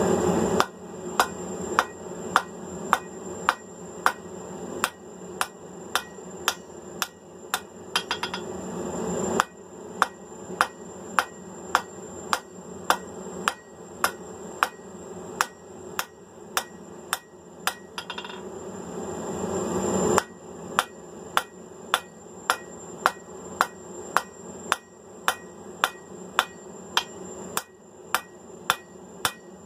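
Blacksmith's hand hammer striking hot mild steel flat bar on an anvil in a steady rhythm, about two blows a second, with a bright ring on each blow, drawing the end out to a taper. A steady rushing sound lies under the blows; it swells and drops off twice, where the hammering pauses briefly.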